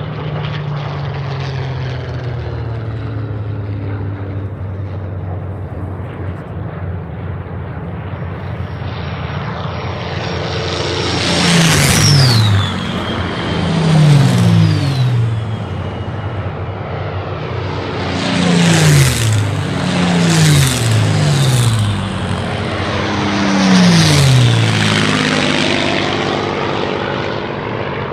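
Rolls-Royce Merlin V12 engines of a group of Supermarine Spitfires flying low overhead one after another. A steady distant drone builds, then there are about five loud passes between about 11 and 25 seconds in, each dropping in pitch as a plane goes by, before the drone eases off.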